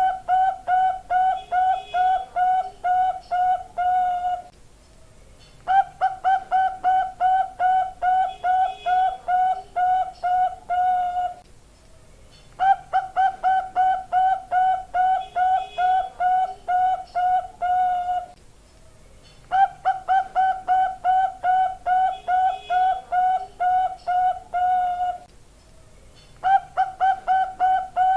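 Perkutut (zebra dove, Bangkok song type) cooing in a steady repeating pattern. It sings phrases of quick, even coos at about three to four notes a second, each phrase lasting five to six seconds and separated by a pause of about a second.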